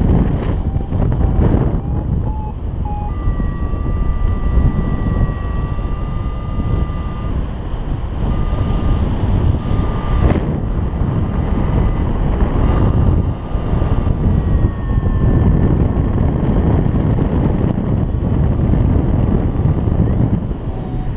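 Airflow buffeting the microphone of a paraglider in flight, a loud steady rush. Over it a variometer sounds: short beeps in the first couple of seconds, then long steady tones that shift in pitch now and then.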